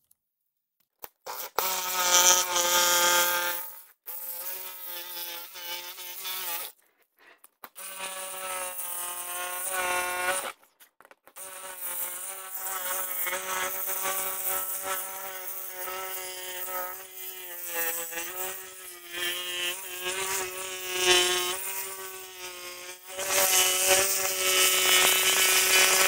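Milwaukee M12 Hackzall one-handed reciprocating saw running, its blade cutting through a motorcycle saddlebag lid along a template with a buzzing whine. It starts about a second and a half in, stops and restarts several times, and is loudest near the end.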